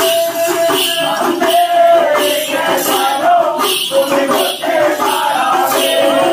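Kerala temple ritual music: a male voice chanting a devotional melody over a steady beat of hand drums and the jingling of dancers' bell belts.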